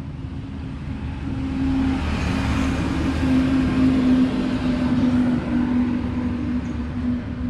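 A motor vehicle engine running nearby with a steady hum, growing louder toward the middle and easing off again near the end.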